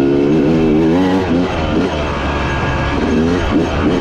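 Dirt bike engine running under the rider, its revs rising and falling over and over as the throttle is worked on the trail.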